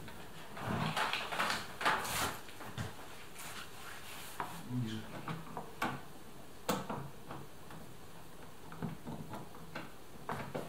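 Small clicks, taps and rustling from hands and a tool working plastic parts and a wiring connector inside a car door, with one sharper click about two-thirds of the way through.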